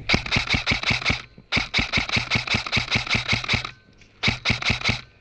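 Airsoft rifle firing three rapid strings of shots, about eight sharp pops a second, with short pauses between them.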